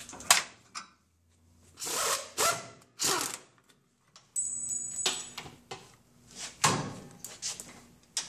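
A string of separate metallic knocks and clunks, about six, spaced out with quiet gaps: tools and brake hardware striking as the rear drum brake backing plate is unbolted and pulled off the axle housing.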